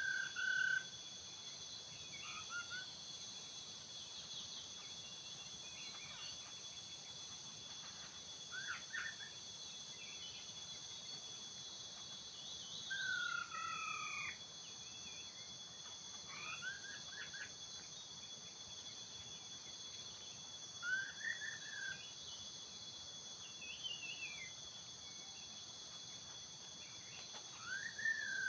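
Laughingthrush giving short, clear whistled calls every few seconds, each slurring up or down, over a steady high drone of insects.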